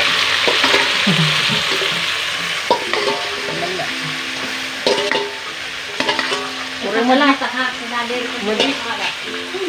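Chicken pieces sizzling in hot oil in a cooking pot as they are stirred, with a few sharp metal clinks. The sizzle is strongest at first and dies down over the first few seconds.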